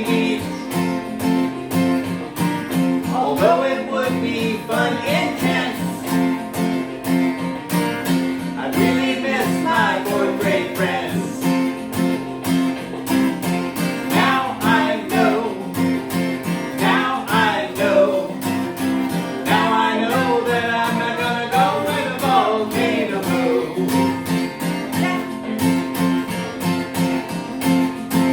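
A song: acoustic guitar strummed in a steady rhythm, with a voice singing in phrases over it.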